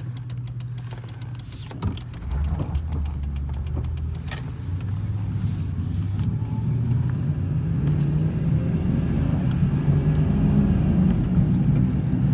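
Ford Thunderbird's 4.6-litre V8 heard from inside the cabin on the road: a low engine hum that grows louder and climbs slightly in pitch as the car picks up speed, with a single knock about two seconds in.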